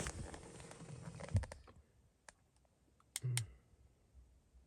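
A hiss that fades out over the first second and a half, then a few faint sharp clicks, with one louder low knock about three seconds in.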